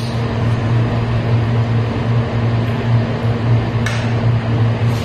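Steady low mechanical hum of a running household appliance, with a single light clink of cutlery on a plate about four seconds in.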